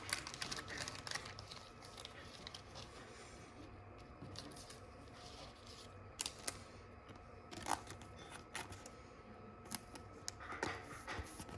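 Quiet handling of a plastic card sleeve and trading card: soft rustling with scattered light clicks and ticks as the card is worked into the sleeve.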